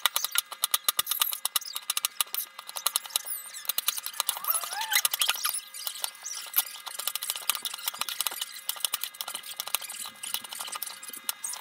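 Chef's knife chopping bell peppers and onion on a bamboo cutting board: rapid, uneven taps of the blade on the wood, several a second.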